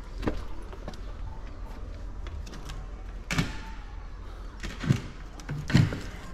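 An old screen door being handled and pulled open: a scraping knock about three seconds in, then two louder knocks of its frame near the end.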